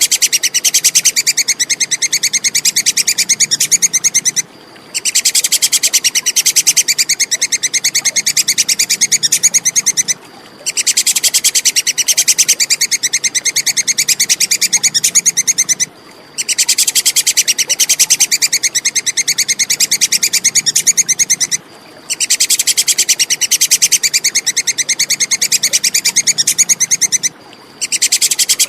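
A tupai (squirrel) giving its rapid, high-pitched 'kekes' chattering call, a fast string of sharp notes in bouts of about five seconds, each broken off by a brief pause.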